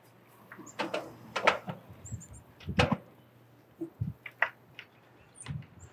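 A few scattered clicks and knocks as a Weber gas grill is handled at its control knobs, the sharpest about three seconds in.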